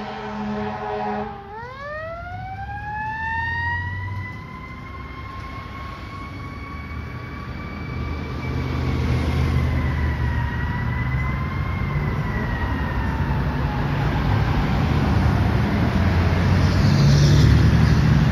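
Fire engine's air horn sounding in short repeated blasts, cut off about a second and a half in. The siren then winds up in one long rising glide, holds, and slowly winds down and fades, over a rumble of road traffic.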